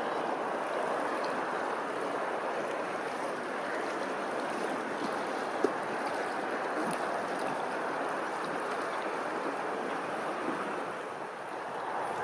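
Running water rushing steadily, with one brief sharp tick about halfway through.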